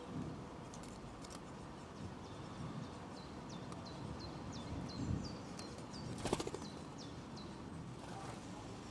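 A small songbird calling a run of short, high, falling notes, about two a second. Near the middle of the run comes a brief, sharp clatter, the loudest sound.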